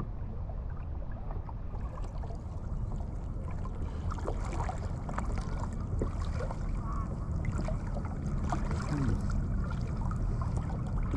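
Shallow seawater lapping and sloshing against a plastic kayak hull and around a wading person, with small irregular splashes and clicks. A steady low wind rumble on the microphone runs underneath.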